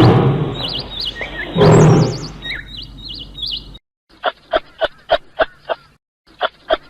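Animal calls: two loud, deep calls in the first two seconds with high bird chirps laid over them, then, after a brief silence, two quick series of short pulsed calls at about three or four a second.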